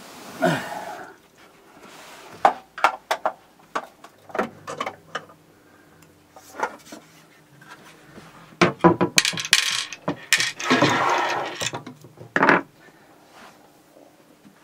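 Metallic clicks and clinks of a screwdriver and screws against the metal chassis and end panel of a Behringer X32 mixing console as it is unscrewed, irregular and scattered, with a longer scraping sound about ten seconds in and a sharp knock soon after.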